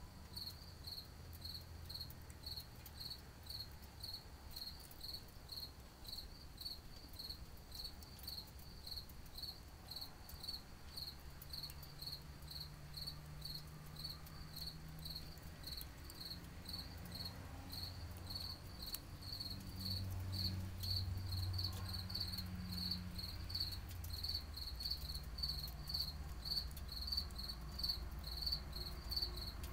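A cricket chirping in a steady rhythm, about two short high chirps a second, over a faint low rumble that swells about two-thirds of the way through.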